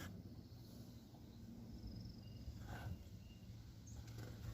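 Quiet background: a faint steady low hum with a few faint, brief high chirps around the middle.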